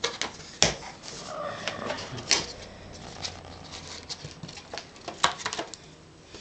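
Inflated latex balloons being handled: rubbery squeaks and rustling with sharp taps, the loudest about half a second in, again just past two seconds and around five seconds.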